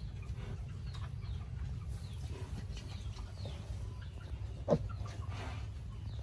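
Small farm animals making faint high squeaks and chirps, with one short, louder call about three-quarters of the way through, over a steady low rumble.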